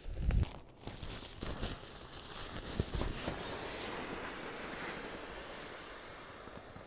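A nylon pump sack rustling as it is clipped onto an inflatable sleeping pad and opened to catch air, with a few handling thumps. From about three seconds in, a steady hiss.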